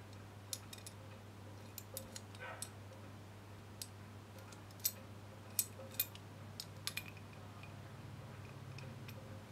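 Scattered sharp metal clicks and clinks from an adjustable A/C compressor clutch holding wrench being handled, its pivoting arms and pins knocking as they are moved to a new size, loudest about five to six seconds in. A steady low hum runs beneath.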